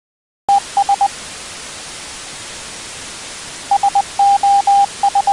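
A steady hiss of static that starts suddenly about half a second in, with a single steady beep tone keyed over it like Morse code. There are a few short beeps at first, then from about four seconds in three short, three long and three short beeps, the Morse signal SOS.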